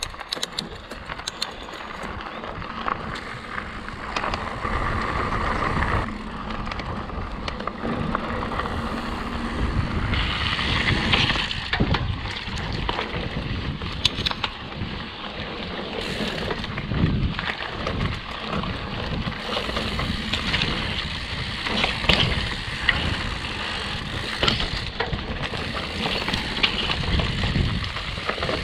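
Mountain bike riding over a gravel road and then a dirt forest trail: tyres rolling and crunching on the surface, with frequent sharp knocks and rattles from the bike over bumps.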